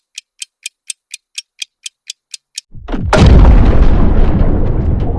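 Quiz countdown timer sound effect ticking about four times a second, then, nearly three seconds in, a loud boom with a long rumbling tail that slowly fades.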